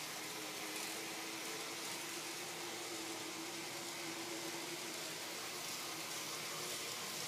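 Small electric motor of an N scale model train locomotive running as it climbs a helix: a faint steady hum, a little stronger a few seconds in, over a steady hiss.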